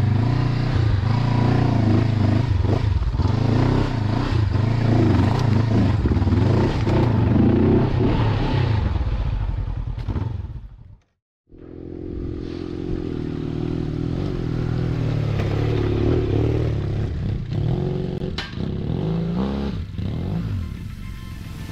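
Large enduro motorcycle engine running under load on a gravel track, its revs rising and falling, with clattering from the bike and the ground. The sound cuts out for a moment about halfway through, then the engine is heard again.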